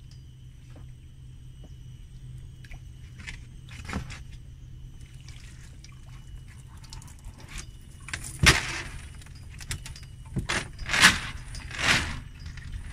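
A wet cast net being hauled out of the water and dumped onto a fibreglass boat deck: splashing and dripping, then several loud wet slaps with the rattle of its chain lead line in the second half as the muddy net lands and is shaken out.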